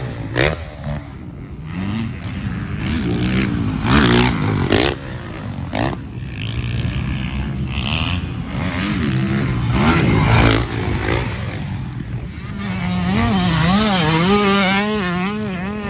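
Motocross dirt bike engines revving up and down as bikes ride the track, with loud passes about four and ten seconds in. Near the end a bike close by runs with a wavering engine note.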